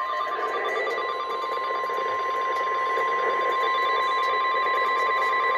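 NOAA Weather Radio warning alarm tone, a single steady 1050 Hz tone over radio hiss, sounding ahead of a severe thunderstorm warning message.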